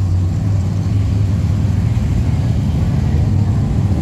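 Car engines running at low revs as cars cruise slowly past, a steady deep exhaust note.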